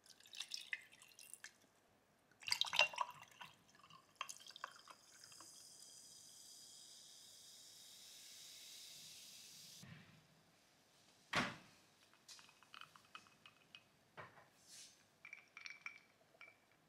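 Cold brew coffee poured over ice in a glass, with the ice clinking, then tonic water poured in from a bottle: a steady fizzing hiss lasting about six seconds that stops suddenly. A single knock follows a moment later, then the faint crackle of the foaming drink and small clinks of ice.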